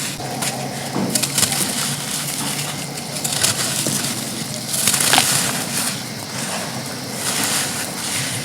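Chunks of pure sand being crumbled and crushed: a dense, crisp crunching and crackling that swells to its loudest about five seconds in.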